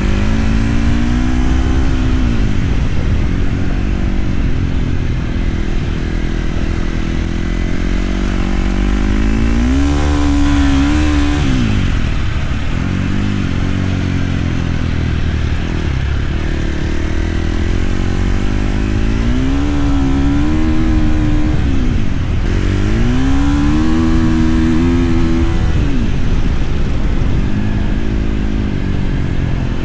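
Flat track motorcycle engine running hard, its pitch climbing and then dropping off several times, about every ten seconds, over a constant low rumble.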